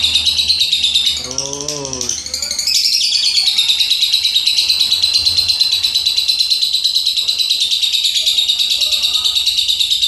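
Lovebird singing a long, unbroken chattering song (ngekek): a rapid, high, evenly repeating chatter with many notes a second. It dips briefly about a second in, then runs on steadily.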